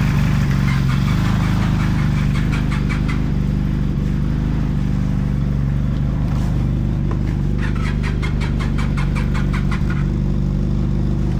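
Arctic Cat F1100 turbo snowmobile's turbocharged four-stroke engine idling steadily while warming up. Two spells of rapid, even ticking, about six a second, sound over it.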